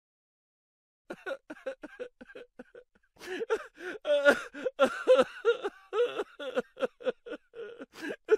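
Laughing sound effect: a person laughing in quick, repeated short bursts, starting about a second in and getting louder and fuller from about three seconds.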